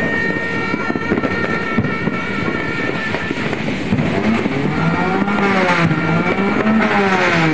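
Loud, dense outdoor noise on New Year's night, with a few sharp pops early on. From about halfway a droning pitched tone joins in, wavering up and down in pitch.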